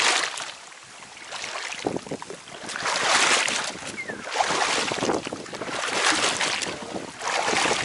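Shallow lake water sloshing and splashing as a person wades through it and drags a fishing net, coming in repeated surges about every second or so.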